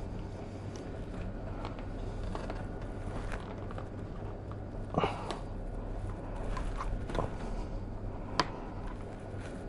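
Handling noises from a plastic mudguard being fitted to a bike fork with rubber bands: scattered small clicks and rubs, a short squeaky stretch about five seconds in and a sharp click near the end, over a steady low electrical hum.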